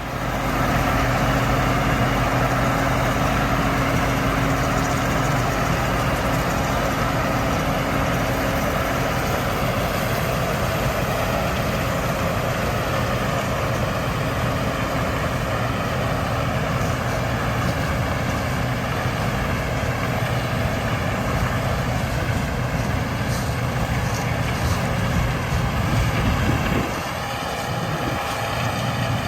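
Heavy diesel farm vehicle running steadily under way, its engine hum holding an even pitch, with a brief drop in level near the end.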